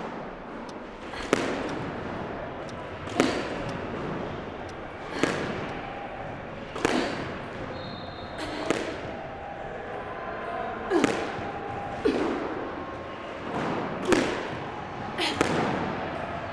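A squash ball being hit and striking the court walls, about ten sharp, echoing hits, one every second or two.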